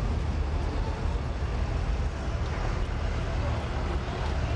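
Steady city street noise with a low traffic rumble.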